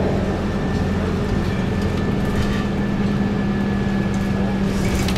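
Cabin of a NABI 40-LFW low-floor transit bus under way, its Detroit Diesel Series 50 diesel engine and drivetrain giving a steady low drone. A faint high steady whine sits above the drone.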